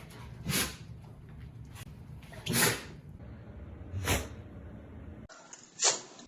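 A dog sneezing: four short, sharp sneezes, one every one and a half to two seconds.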